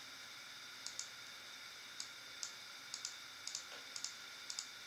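Short, sharp clicks of a computer mouse and keyboard, about a dozen, some in quick pairs, over a faint steady electrical whine.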